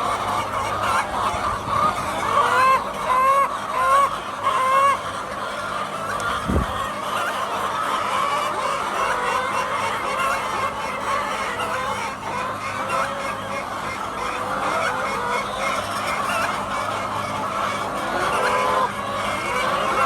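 A flock of hens clucking and calling together, with one bird repeating a short rising call about every half second early on. A single dull thump about six and a half seconds in, over a faint steady hum.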